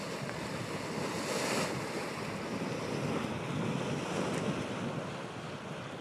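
Boiling hot spring churning and steaming: a steady rushing, bubbling noise that swells slightly a second or so in.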